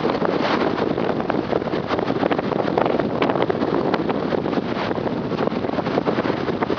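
Strong wind blowing across the microphone: a steady rushing noise full of crackling buffets.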